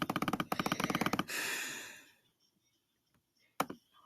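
Computer keyboard keys clicking in a fast run, about a dozen a second, stopping a little over a second in. A short hiss follows and fades out, and near the end there are a couple of single clicks.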